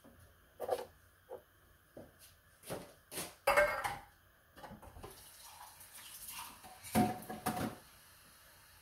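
Kitchen utensils knocking and clinking: a wooden spoon set against a metal pot, then dishes and cutlery. The loudest is a ringing clink a few seconds in. A short stretch of tap water runs in the second half, with two more clinks near its end.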